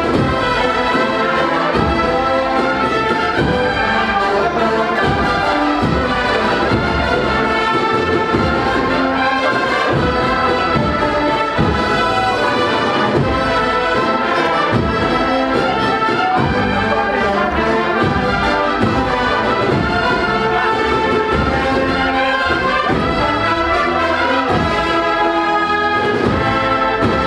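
Agrupación musical, a cornet, brass and drum band, playing a processional march, with brass melody over a steady drumbeat.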